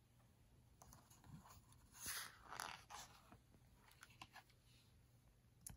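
Faint paper rustle of a hardcover picture book's page being turned, two soft swishes about two seconds in, followed by a few light taps and clicks of handling.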